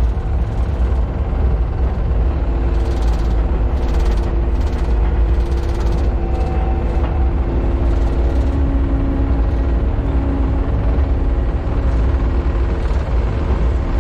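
Takeuchi loader's diesel engine running steadily under load, a deep drone whose tones shift slightly about halfway through.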